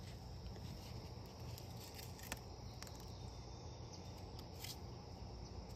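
Faint steady chirring of insects, over a low rumble, with two soft clicks about two seconds in and a second before the end.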